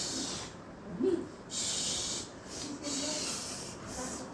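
Sniffing: several breathy, hissing bursts about half a second long, with a short pitched squeak of a voice about a second in.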